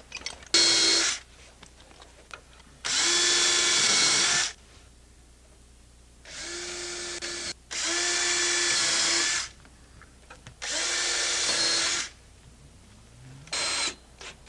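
Power drill running in six short bursts, its motor spinning up to a steady pitch and stopping each time, as the cement siding plank is fastened. The longer runs last about a second and a half; the last one is brief, near the end.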